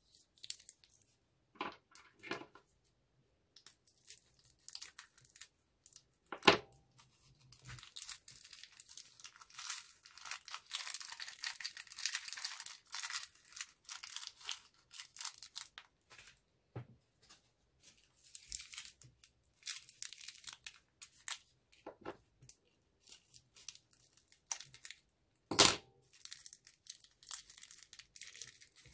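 Small clear plastic bags crinkling and tearing open as sequins, pearls and flakes are sprinkled from them into a glass dish of beads, a dense high rustling patter for several seconds in the middle. A few sharp clicks, the loudest about a quarter of the way in and near the end.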